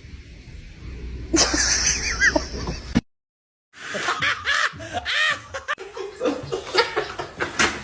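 People laughing, in two bursts split by a sudden cut to silence about three seconds in.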